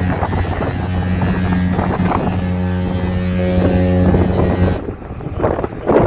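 Ship's horn sounding one long, deep, steady blast that cuts off about five seconds in. Wind buffets the microphone throughout.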